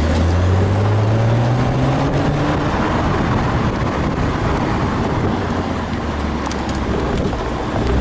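Driving noise inside a BMW 135i with its seven-speed dual-clutch gearbox: a low drone that climbs in pitch with engine speed for the first two seconds or so, then gives way to steady road and wind noise, with a low drone returning near the end. The owner links an unexplained noise to engine or gearbox speed rather than road speed.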